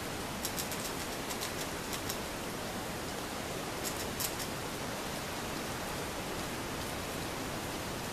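Steady hiss throughout, with small clusters of crisp clicks in the first half: a red-tailed squirrel gnawing at the fibrous husk of a green coconut.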